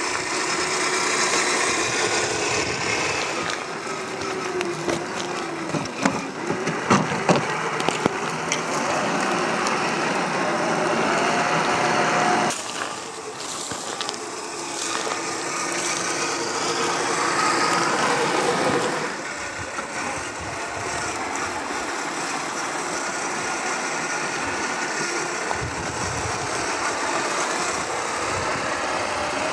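Electric motors and gearboxes of Traxxas TRX4 RC crawlers whining, the pitch rising and falling with the throttle. A cluster of sharp knocks comes about six to eight seconds in.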